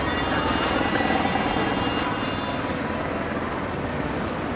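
Street traffic: vehicle engines running steadily in slow town traffic.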